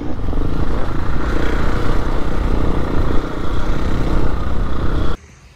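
Motocross bikes' engines running while being ridden, with rumbling, rattling road noise close to the microphone; it cuts off suddenly about five seconds in.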